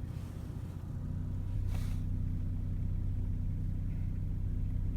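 Car engine and road noise from inside a moving car, a steady low hum that picks up slightly about a second in, with one brief hiss a little under two seconds in.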